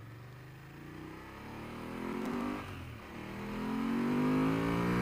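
BMW F750GS's parallel-twin engine accelerating hard from low speed, its pitch rising, dropping briefly about three seconds in at an upshift, then rising again and getting louder.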